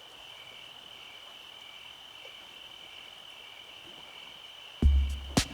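A steady, high-pitched insect chorus buzzing. Near the end, music cuts in with a heavy bass beat and sharp percussive hits.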